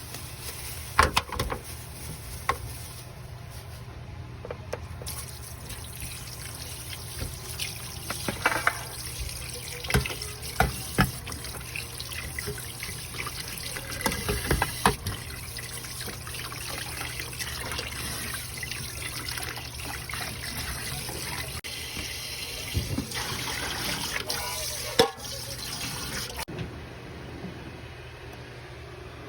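Water running from a tap into a kitchen sink, with scattered knocks and clatters of kitchenware. The running water cuts off suddenly near the end.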